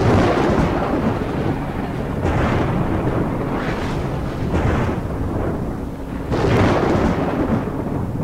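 Rolling thunder sound effect that starts suddenly, a deep rumble with several loud crashes swelling through it; the biggest come at the start and at about six and a half seconds.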